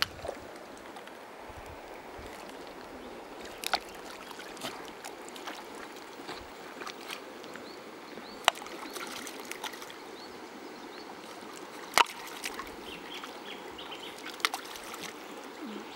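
Steady running water of a shallow, stony river, with a few sharp isolated knocks over it, the loudest about three-quarters of the way through.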